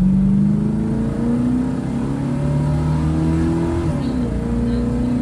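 Car engine and 3-inch exhaust under hard acceleration, the pitch climbing steadily through the revs; about four seconds in it drops suddenly as the 4L80E automatic transmission upshifts, and then it pulls again.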